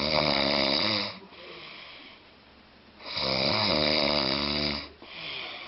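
A man snoring in his sleep: two long, loud snores, each over a second, about three seconds apart, with a softer breath after each.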